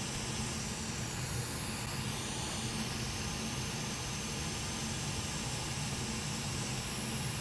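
Hot air rework station blowing a steady hiss onto the circuit board, heating it to melt the solder under a fused power-stage (DrMOS) chip so that it can be lifted off.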